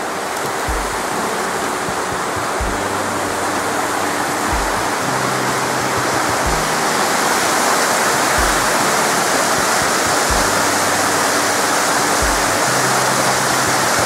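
A mountain stream tumbling over rocks, a steady rush of water that grows a little louder partway through. Music plays underneath, with a deep bass beat about every two seconds and low held chords.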